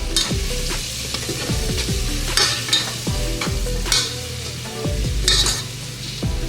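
Food sizzling and frying in a buttered pan, a steady hiss with a few louder swells.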